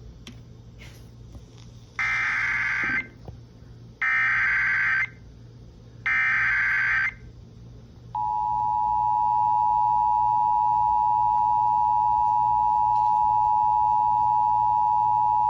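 Emergency Alert System tones over FM radio: three bursts of SAME header data tones, each about a second long and a second apart, then about eight seconds in the steady two-tone EAS attention signal starts and holds. This is the header and alert tone that open a flash flood warning.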